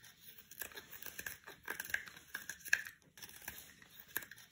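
Quiet, irregular crackling of many small clicks and snaps, which stops for a moment about three seconds in and then carries on.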